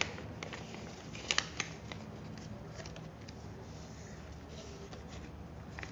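Sheet of origami paper being folded and creased by hand: scattered crackles and rustles, with a few sharper crinkles about one and a half seconds in.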